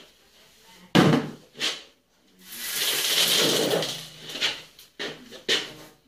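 Steel box-section rack frame with metal shelf panels being handled and tipped up onto its end on a tiled floor. A sharp metal clank about a second in and another just after, then a long scraping rattle and a few sharp knocks near the end.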